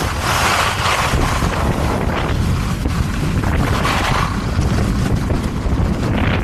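Wind buffeting the microphone while skiing downhill, a loud, steady rumble, with the hiss of skis sliding and turning on snow swelling twice, about a second in and about four seconds in.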